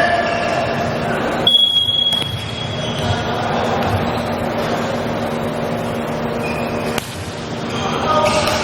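Referee's whistle blown once about a second and a half in, a single high steady note held for over a second, over the murmur of a crowd in a gym.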